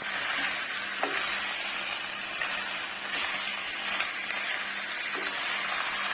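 Chicken pieces with sliced garlic and ginger sizzling in hot oil in a ceramic-coated wok as a spatula stirs them, with a few light scrapes and knocks. The chicken is being stir-fried until it gives off its own fat.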